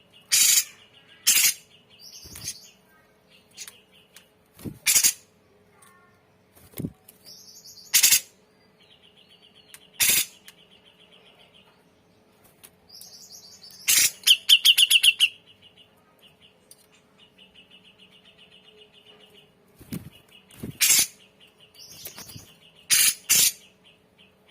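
Grey-cheeked bulbul (cucak jenggot) singing a varied song full of borrowed phrases. Loud sharp calls come every second or two between buzzy chattering trills, with a fast run of notes about fourteen seconds in. A faint steady hum lies underneath.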